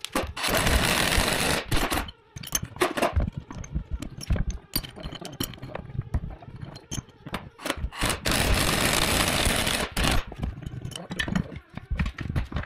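Impact wrench rattling out bolts from a dozer final drive housing: one burst of about a second and a half near the start and another about eight seconds in, with scattered clanks and knocks of metal parts and tools between them.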